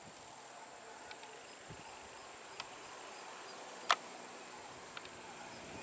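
Steady high-pitched drone of insects in roadside forest, with one sharp click about four seconds in and two fainter ticks around it.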